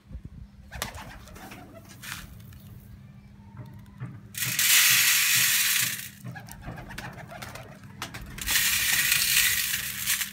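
Mixed seed and grain poured into a galvanized metal tray in two pours of about two seconds each, one about four seconds in and one about eight seconds in, a rattling hiss of seeds hitting sheet metal. Pigeons cooing in the background.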